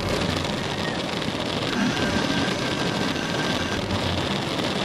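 Flood coolant gushing from a flexible nozzle in a Tormach 440 CNC mill and splashing over an aluminium block in the vise: a steady rushing splash that starts suddenly.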